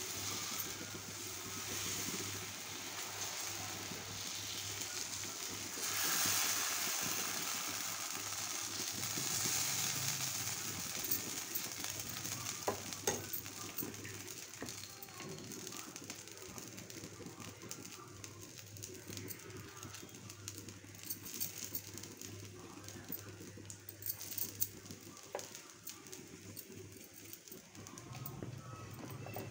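Green gram dosa (pesarattu) batter sizzling on a hot dosa griddle as it is spread with a ladle, the hiss strongest in the first ten seconds and then dying down. A few light taps later on, and a steady low hum underneath.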